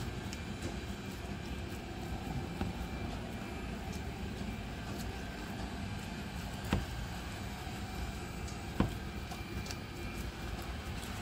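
A steady low rumble of background noise, with a few light knocks, the clearest about seven and nine seconds in.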